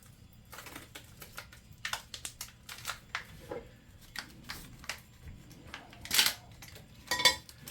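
Hands handling small plastic parts and packaging: irregular light clicks and taps, with two short, louder rustling bursts about six and seven seconds in.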